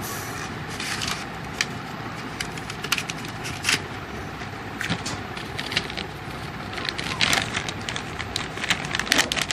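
Packets of colouring supplies being handled: irregular crinkling, clicks and taps, growing busier near the end.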